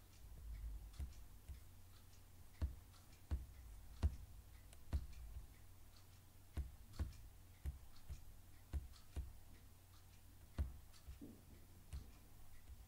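Faint, sharp clicks from a computer being operated, about one a second at an uneven pace, each with a low thump under it, over a faint steady low hum.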